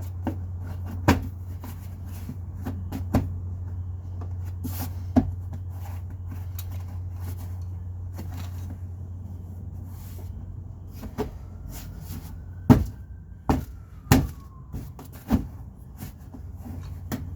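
Scattered sharp knocks and clacks of car parts being handled and fitted in place, a few seconds apart and loudest near the end, over a steady low hum.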